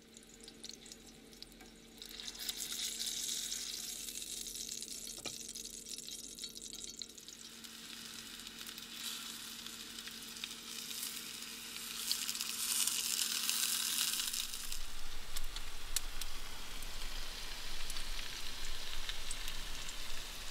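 Tacos frying in hot oil in a skillet: a steady sizzle that starts about two seconds in and is loudest around twelve to fourteen seconds.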